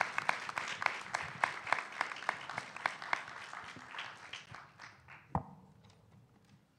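A small audience applauding. The claps thin out and die away over about five seconds, with a single knock near the end.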